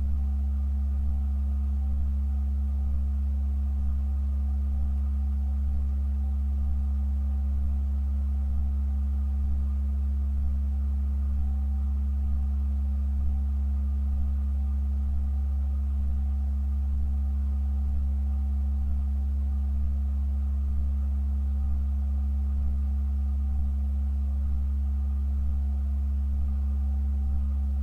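Church pipe organ holding a sustained chord: a loud, very low bass tone with a quieter tone above it and faint higher notes, unchanging throughout.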